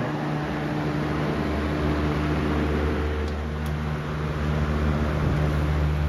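Lakewood model 200 20-inch box fan running steadily: a rush of moving air over a low motor hum.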